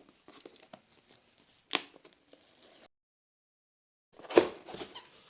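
A cardboard keyboard box and its packaging are handled and opened: light scraping and rustling, a sharp snap about two seconds in, then a louder burst of crinkling and rustling near the end.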